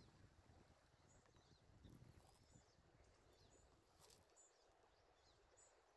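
Near silence: faint room tone with a soft low rumble of handling early on and faint short high chirps repeating about once a second.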